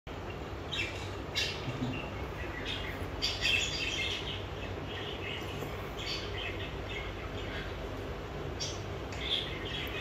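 Pet budgerigars chirping and chattering in short, scattered bursts of high chirps, over a steady low background hum.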